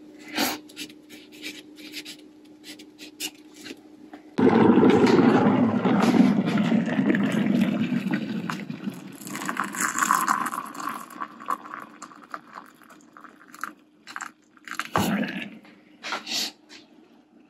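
Freshly boiled water poured from a kettle into a collapsible Sea to Summit X-Mug, starting suddenly about four seconds in and running for about six seconds, loudest at first. Light clicks and knocks from handling the mug and probe thermometer come before and after the pour.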